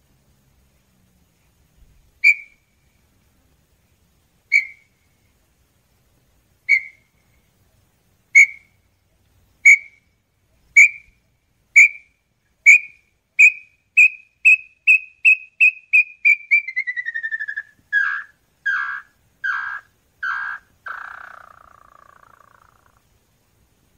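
Small-billed tinamou (inhambu-chororó) song: whistled notes, widely spaced at first and steadily speeding up, run into a fast trill that falls in pitch, then four lower, harsher notes and a final note that fades out.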